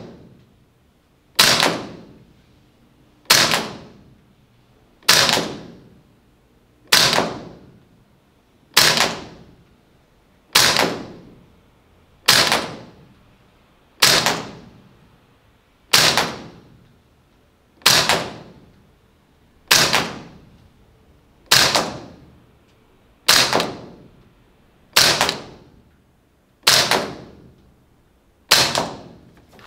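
APFG MPX gas blowback airsoft rifle fired single shots at a slow, steady pace, about one every two seconds, sixteen shots in all, each a sharp report that rings briefly in the room.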